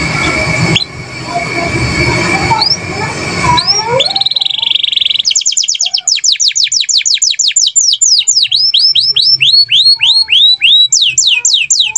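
Domestic canary singing in rapid rolls: a buzzy trill about four seconds in, then long runs of fast repeated sweeping whistles that change tempo and pitch from one run to the next. For the first few seconds the song sits under a noisy, rumbling background.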